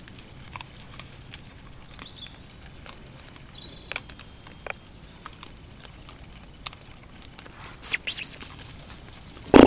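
Young wild boar feeding on scattered bait: crunching and rustling with many small clicks, and a few brief high squeaks. A louder rustle comes about eight seconds in, and a loud thump right at the end.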